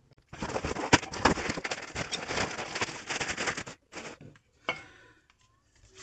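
Cardboard box opened and a new brake rotor lifted out in its plastic bag: about three and a half seconds of dense crinkling and rustling with a few sharp clicks, then a few brief, fainter handling sounds.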